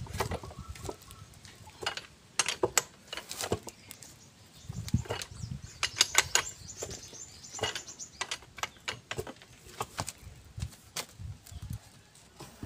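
Irregular sharp metallic clicks and clinks of a wrench and hand tools on the bearing cap bolts of a Colt Diesel differential carrier as the bolts are tightened during reassembly.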